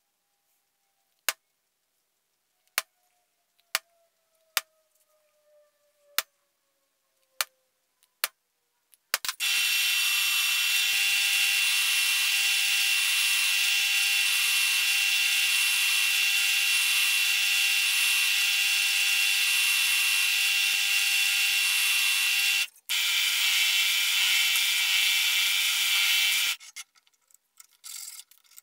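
About eight sharp metallic taps, spaced a second or so apart, of a hammer striking a center punch on steel plate. About nine seconds in, a drill press starts running and drilling holes in 3 mm steel plate: a loud, steady whine that stops briefly and resumes, then ends in a few short bursts near the end.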